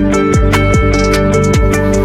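Background music: an electronic dance track with a steady kick-drum beat, close to three beats a second, under a held melody.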